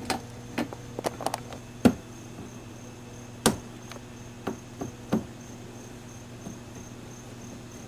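Scattered sharp clicks and knocks of a 10 mm wrench working the bolts that hold a fender splash shield in the wheel well, loudest about two and three and a half seconds in.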